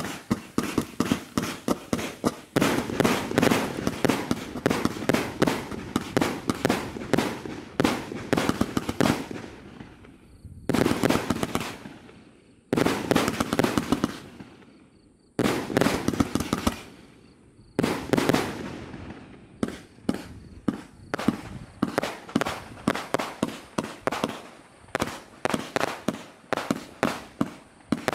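A 300-shot, 30 mm compound firework battery firing: dense volleys of rapid launch shots and bursts, broken by a few brief lulls around the middle, then a more even run of about two reports a second near the end.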